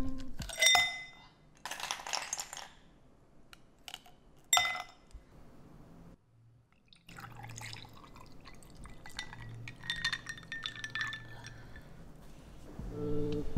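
Ice cubes dropped into a tall drinking glass, clinking and ringing the glass in a few separate strikes. Then milk is poured over the ice for about five seconds: running liquid with faint clinks of ice.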